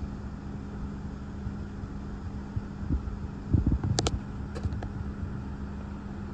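Gusty thunderstorm outflow wind buffeting the microphone in low thumps that come thickest about three to four seconds in, over a steady low hum. A brief high chirp sounds about four seconds in.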